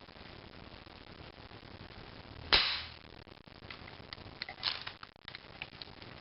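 A single sharp shot from a Marksman Repeater 1010c spring-powered air pistol about two and a half seconds in, followed by a few lighter mechanical clicks and rattles near the end.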